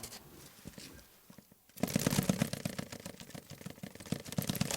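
Foley imitation of bird wings flapping: a dense, rapid flutter of many quick strokes that starts suddenly about two seconds in, like a startled pigeon taking off rather than the slow beat of geese.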